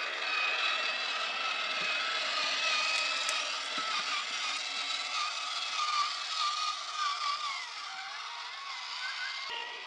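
FMS FCX24 K5 Blazer RC crawler's small electric motor and geared drivetrain whining as it crawls over rocks, the pitch wavering up and down with the throttle and easing off near the end.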